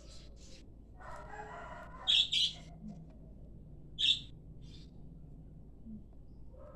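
Lovebird giving short, shrill chirps: two in quick succession about two seconds in and another about four seconds in.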